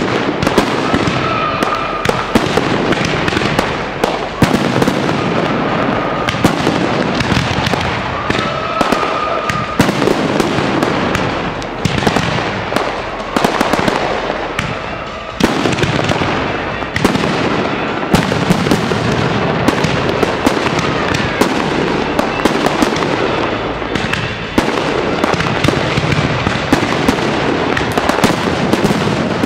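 Aerial firework shells bursting in rapid, near-continuous bangs and crackles, one overlapping another.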